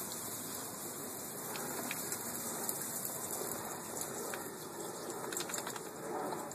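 Thin stream of water from a garden hose wand spattering onto wooden deck boards, a steady hiss. A few light ticks and splashes come in a cluster about five seconds in.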